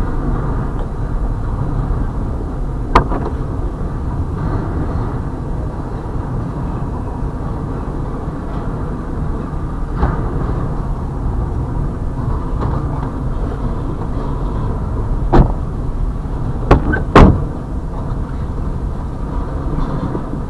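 Double-stack intermodal freight train rolling past: a steady rumble of wheels on rail, broken by five sharp clanks, three of them close together near the end, the last the loudest.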